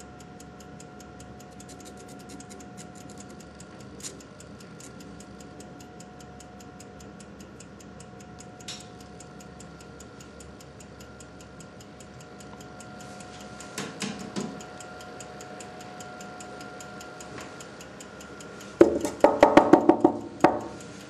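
Steady rapid mechanical ticking over a faint steady hum, with a few single clicks and a burst of loud rattling knocks near the end.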